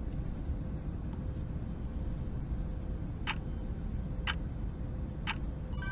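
Steady low rumble of airliner cabin noise, with three short ticks about a second apart in the second half.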